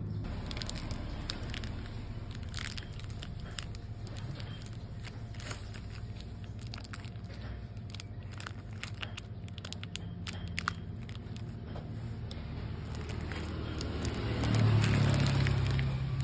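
Knife chopping salted egg yolk through a plastic sheet on a wooden chopping board: a run of light, irregular taps and crackles of the plastic, over a steady low hum. Near the end a louder low rumble swells up.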